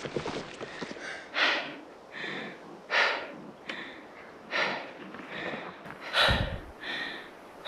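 A cyclist panting hard, loud gasping breaths about once a second. She is out of breath from pedalling uphill in the thin air at about 5,400 m, where her muscles are short of oxygen.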